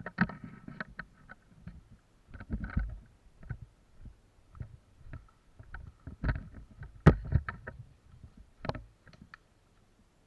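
Irregular knocks, clicks and low thumps, with a few sharper cracks about two-thirds of the way through.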